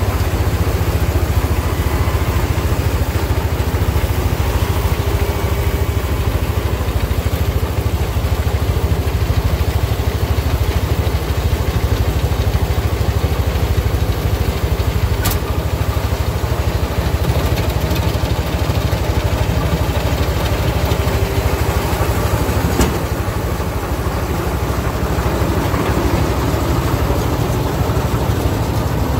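Engine idling steadily nearby as a low, even rumble, with a sharp click about halfway through and another about three quarters through.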